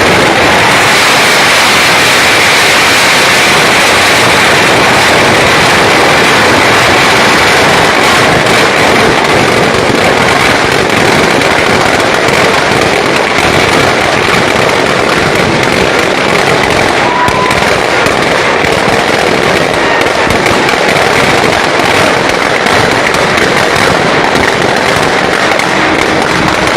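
Firecrackers going off in a dense, continuous crackle, loud and unbroken.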